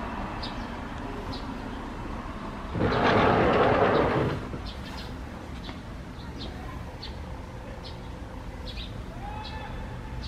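Street ambience with small birds chirping in short, repeated high notes over a low background hum. About three seconds in, a loud rush of noise rises and dies away within about a second and a half.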